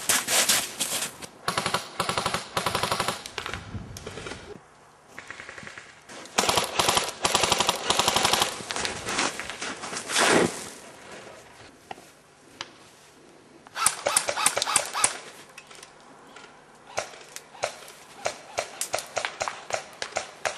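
Airsoft guns firing on full auto: several bursts of very rapid clicking shots, with short pauses between them.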